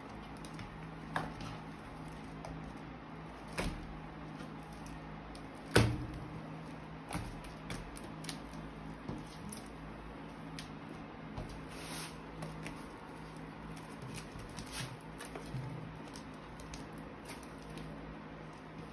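Sticky slime being kneaded, pulled and stretched by hand, giving scattered small clicks and sticky pops, with one louder pop about six seconds in. A steady low hum runs underneath.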